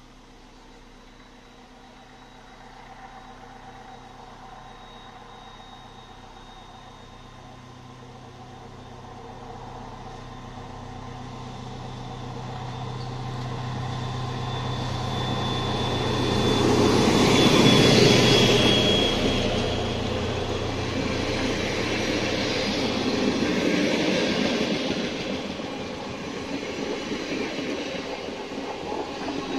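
Polregio regional diesel train approaching and passing: a low engine drone grows from faint to loudest about two-thirds of the way through, with a thin high wheel squeal at its peak, then the noise of the rolling cars eases off near the end.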